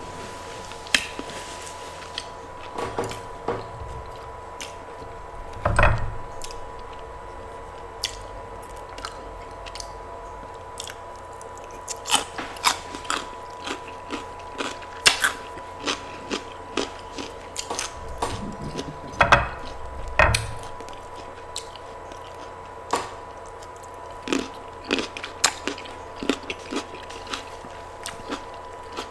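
Close-miked eating: chewing and biting with frequent sharp mouth clicks and crisp crunches. There are a few heavier thumps about six seconds in and twice around twenty seconds. A faint steady hum runs underneath.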